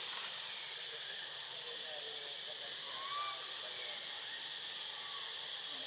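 Forest background: a steady hiss with a thin, steady high-pitched whine running through it, and a few faint chirps near the middle.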